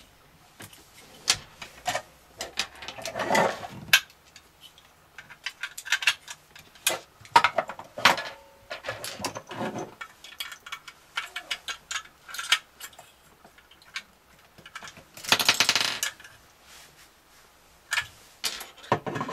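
Small metal screws and hard plastic kit parts clicking, clinking and rattling on a wooden tabletop as a plastic toy robot kit is put together with a small screwdriver, with a longer rattle about fifteen seconds in.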